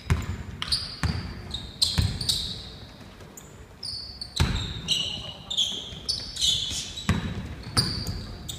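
A basketball bouncing on a hardwood gym floor: irregular thuds that echo in the large hall. Short, high-pitched squeaks of sneakers on the floor come between the bounces.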